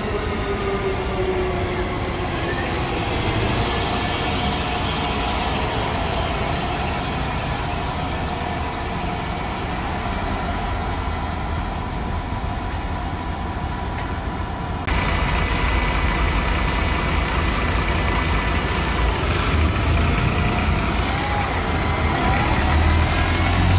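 City bus engines: a bus driving through the interchange with a steady hum and drifting whine. About two-thirds of the way in it changes sharply to a louder, deeper rumble of a bus idling close by its rear engine grille, which swells near the end.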